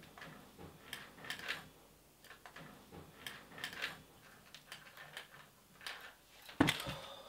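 Plastic buttons on a TV remote control clicking as they are pressed repeatedly, in small clusters, with a louder knock near the end.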